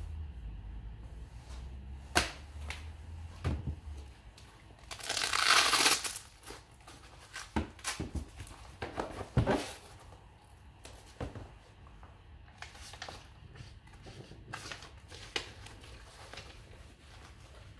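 Scorched fire-resistant document wallet and paper being handled: crinkling and crushing of the foil-faced fabric and paper, loudest in a long crumpling rustle about five seconds in, with a few sharp clicks and knocks between.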